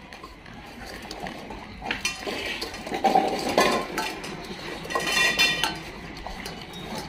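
Stainless steel dog bowls clinking and scraping on a tiled floor as several dogs eat from them, with a louder ringing clank a little after five seconds in.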